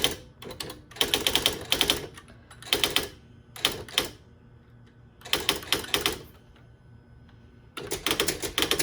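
Smith Corona The Office 2000 electronic typewriter printing in quick runs of rapid strikes, stopping and starting every second or so, then printing steadily without a break near the end.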